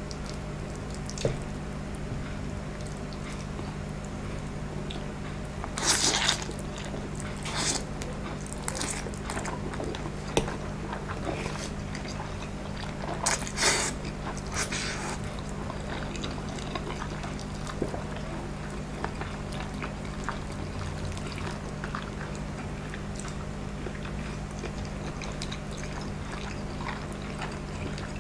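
Close-up eating of instant noodles: a forkful is slurped about 6 seconds in and again at about 13 to 14 seconds, with chewing and small fork clicks in between. A steady low hum runs underneath.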